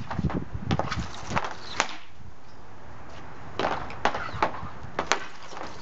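Hockey stick blade and puck knocking on a plastic shooting pad: a quick run of sharp clacks, a pause of about a second and a half, then another cluster of clacks.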